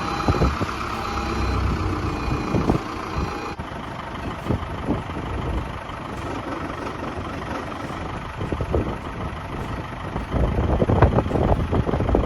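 Backhoe loader's diesel engine running, with a steady whine over it that stops about three and a half seconds in. Wind buffets the microphone in gusts, strongest near the end.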